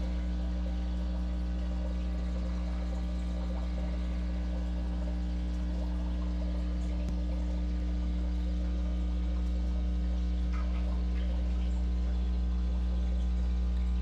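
Steady bubbling and trickling of air bubbles from aquarium sponge filters and an air stone, picked up underwater, over a constant low hum.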